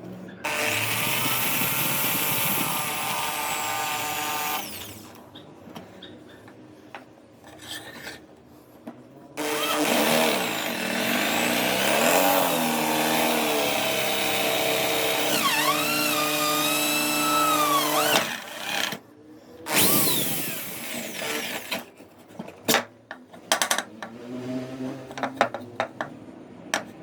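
Benchtop drill press running and boring into wood in three separate runs, the motor's pitch dipping under load during the longest one, with clicks and knocks in between.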